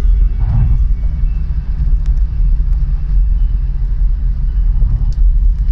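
Car driving at speed, heard from inside the cabin: a steady low rumble of road and engine noise.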